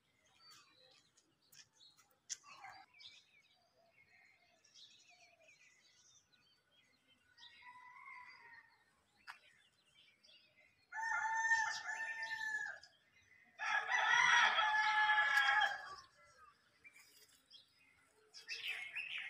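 A rooster crowing twice in quick succession a little past the middle, each crow a loud, pitched call lasting about two seconds. Faint small-bird chirps come and go around it.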